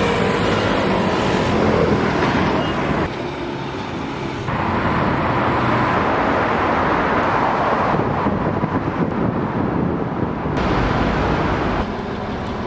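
City road traffic noise: vehicles running and passing, loud and steady, changing abruptly every few seconds as separate street recordings are cut together.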